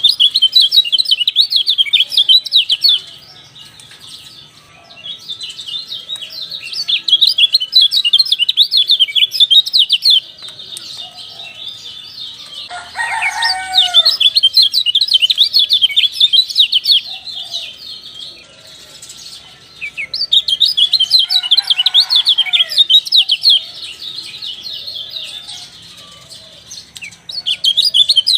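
Kecial songbird singing a rapid, high, chattering song in bursts of several seconds with short pauses between them. Lower, curving calls come in twice, about thirteen and twenty-two seconds in.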